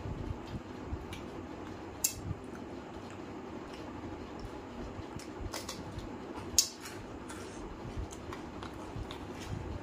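Eating by hand from a steel plate: fingers squishing through chicken curry, with chewing and scattered small clicks as rings and metal bracelets knock against the plate. There are two sharper clicks, about two seconds in and about six and a half seconds in, over a steady low hum.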